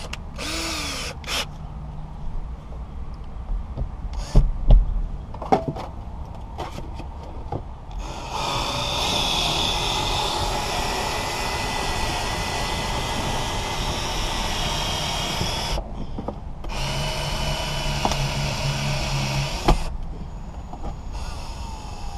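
Powered windshield cut-out winder running steadily as it winds in the cutting line through the urethane on the last cut, in one long pull of about eight seconds and then a shorter one of about three. Scattered clicks and knocks come before it.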